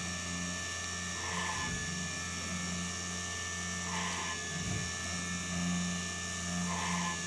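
3018 desktop CNC machine running with a steady spindle hum, and a short burst of cutting noise about every two and a half seconds as it drills a row of holes, each burst followed by a brief low motor sweep.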